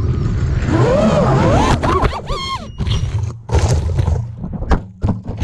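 FPV quadcopter's brushless motors whining, rising and falling in pitch with the throttle. In the second half the whine breaks up into a choppy run of sharp clacks and hits as the quad plunges into tree foliage, its propellers striking leaves and branches.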